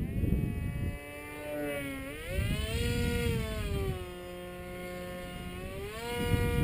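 Su-37 radio-controlled model jet flying overhead, its motor whining as a stack of tones: the pitch rises about two seconds in, sinks again after about three seconds, and climbs near the end. Wind rumbles on the microphone in the first second and again near the end.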